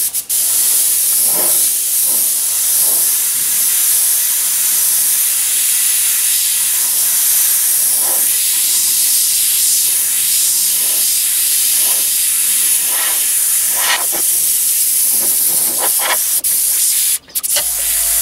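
Airbrush spraying thinned black paint: a steady hiss of compressed air through the nozzle, which stops briefly near the end.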